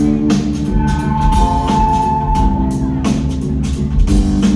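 Live band playing an instrumental passage: a steady drum-kit beat over bass and sustained higher notes.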